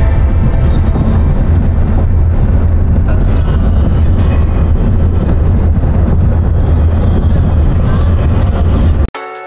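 Car driving on a rough gravel track, heard from inside the cabin: a steady, loud rumble of tyres on loose stones and engine, cut off abruptly near the end.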